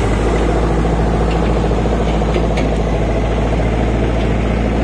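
Mahindra 575 DI tractor's four-cylinder diesel engine running steadily as the tractor moves slowly forward.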